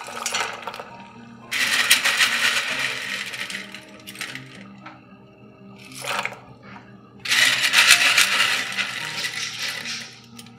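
Handfuls of dry penne pasta dropped into a stainless steel pot of boiling water, the pieces clattering in. There are two long pours, one about a second and a half in and one about seven seconds in, with shorter drops at the start and about six seconds in.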